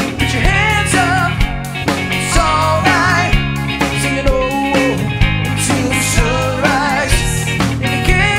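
A rock band playing: a man singing over electric guitar and a drum kit, with steady low notes running underneath.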